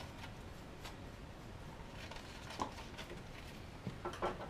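Faint handling clicks and knocks at a soldering workbench as the soldering iron is worked in a brass-wool tip cleaner and the cleaner is set down. There is a single sharp click about halfway through and a short cluster of knocks near the end.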